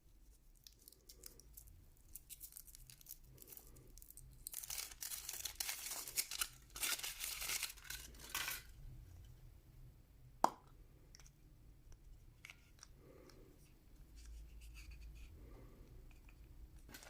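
Foil wrapper of a Kinder Surprise chocolate egg being torn and crinkled for several seconds, with scattered small rustles around it. One sharp click comes about ten and a half seconds in.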